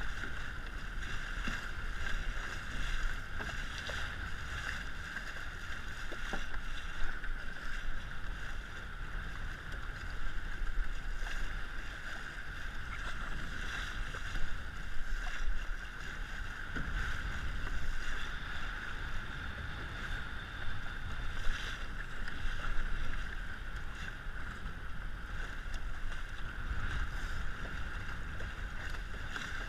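Steady rush of water along the hull of an RS100 sailing dinghy under way, with wind buffeting the camera microphone and a few brief louder peaks.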